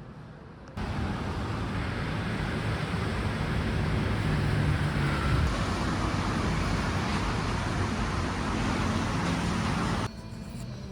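Loud, steady vehicle noise, a rush with a low rumble underneath, that starts abruptly about a second in and cuts off suddenly near the end.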